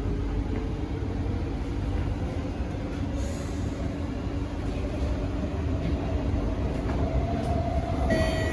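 Inside an SMRT C151C electric metro car (Kawasaki & CRRC Sifang) running at speed: a steady rumble of wheels on rail with a constant hum. A few higher tones come in right at the end.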